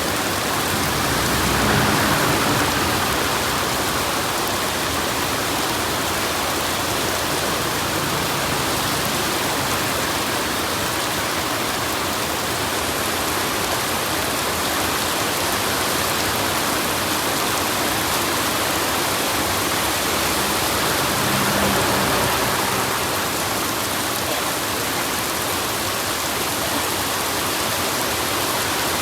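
Steady heavy rain, an even dense hiss, swelling slightly about two seconds in and again near the end of the middle stretch.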